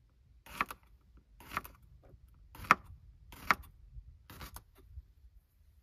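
Sharp knocks or taps from cooking utensils being handled, five main strokes about a second apart with a few fainter ones between.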